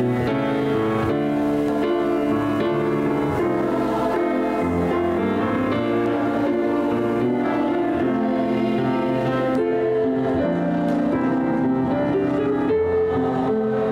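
Church choir singing a sung prayer with piano accompaniment, in slow, sustained notes.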